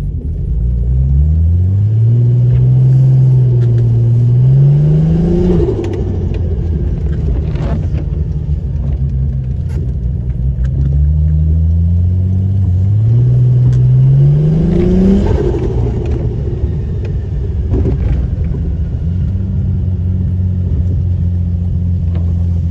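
Holden VL Turbo's RB30 turbocharged straight-six, running on E85, accelerating hard twice: the revs climb steeply and then cut off sharply as the throttle is lifted. After that the engine runs along at steady revs.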